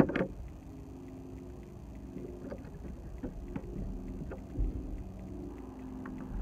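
A motor drones steadily in the background, with a few faint clicks and a low thump from hands working a plastic phone-mount pin and strap.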